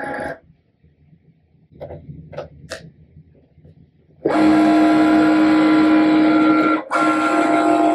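Cricut Maker cutting machine starting a cut: a few faint clicks, then about four seconds in its carriage motors start a loud, steady whine of several tones, breaking off briefly near the seven-second mark before resuming.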